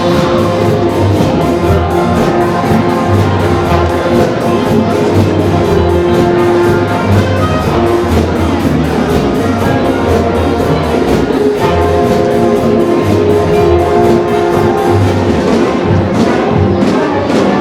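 A high school jazz band playing a tune, with brass held notes over a steady drum beat.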